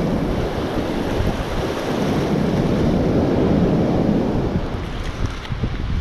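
Surf washing up over the wet sand at the water's edge, with wind buffeting the microphone.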